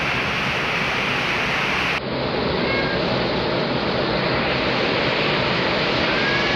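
Steady hiss of heavy rain, with faint brief high chirps about three seconds in and again near the end.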